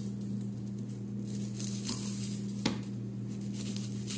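Red onions being peeled with a small knife: dry, papery skins crackling and tearing, with a sharp knife tap about two-thirds of the way through. A steady low hum runs underneath.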